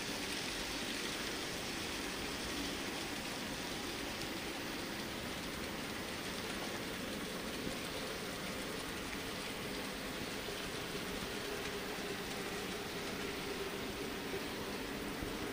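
Z scale model freight train running on layout track: a steady rattling rush from the many small wheels rolling on the rails, with a faint hum underneath.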